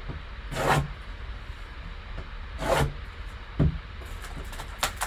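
Box cutter slitting the plastic shrink wrap on a sealed trading-card box: two short scraping strokes, followed by a knock and a few light clicks as the box is handled.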